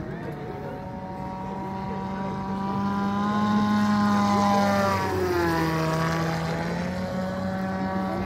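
Arrowcopter AC20 electric model autogyro, its Hacker Q80 brushless motor and propeller whining, flying a low pass. The whine swells to its loudest about four seconds in, then drops in pitch around five seconds as the gyro passes by, and eases off a little.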